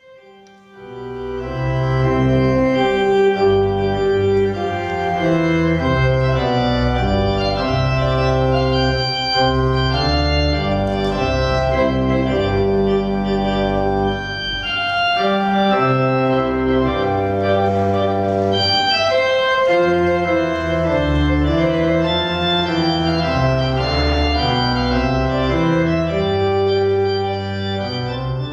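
Church organ playing slow, sustained chords over deep bass notes: the closing voluntary after the blessing. It starts about half a second in and begins to fade near the end.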